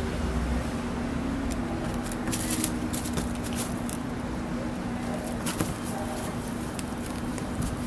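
Cats playing on a concrete floor: light scratching and rustling from paws and claws on the fringe threads, a few short scrapes in the middle, over a steady low background hum.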